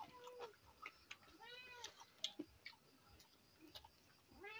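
A cat meowing twice, each a short call that rises and falls in pitch, one about a second and a half in and one near the end, over faint clicks of hand-eating at the plates.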